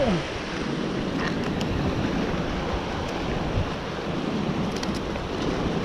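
Sea surf washing and breaking against coastal rocks, a steady rushing wash, with wind buffeting the microphone. A few faint ticks sound about a second in and again near the end.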